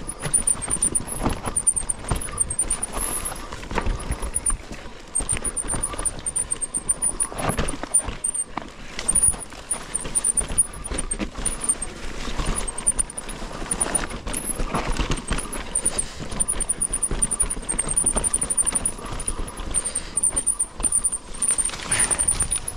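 Mountain bike ridden fast down a narrow dirt and rock singletrack: a steady rush of wind and tyre noise, broken by frequent knocks and rattles as the bike hits bumps.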